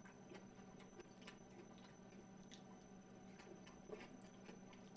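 Near silence with faint, scattered small clicks of a person eating, chewing and handling chopsticks close to the microphone, over a faint steady hum.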